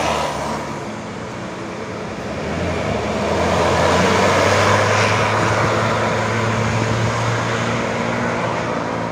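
Tour bus diesel engine working under load as the bus climbs past, swelling to its loudest about halfway through and then holding steady.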